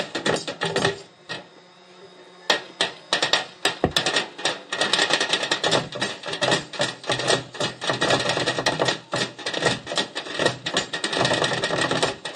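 Group of drummers beating sticks on improvised drums made from waste buckets and containers, a fast, dense rhythm of sharp strikes. The beating breaks off about a second in and comes back in together just after two seconds.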